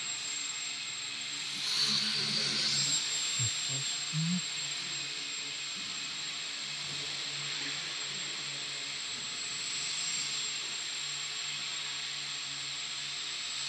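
Electric motor and propeller of a small control-line GeeBee model airplane running in flight, a steady high whine with a hiss. A brief louder stretch comes about two to four seconds in.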